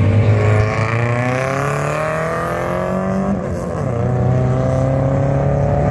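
Rally car accelerating hard away up a gravel hill-climb road, its engine revving up through the gear, a brief drop about three seconds in as it shifts up, then revving again.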